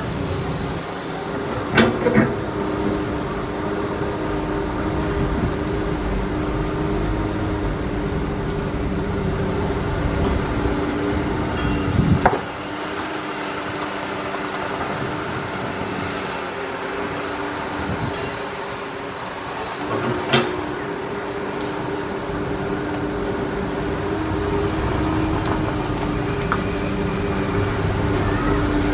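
Komatsu PC200 hydraulic excavator's diesel engine running steadily under digging load with a steady hum, as it scoops and swings dirt into a dump truck. Three sharp metal clanks: about two seconds in, around twelve seconds in (the loudest), and around twenty seconds in.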